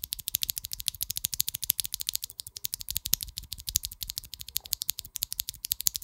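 Mechanical keyboard with Invyr Holy Panda tactile switches being typed on quickly, a steady stream of many keystrokes a second.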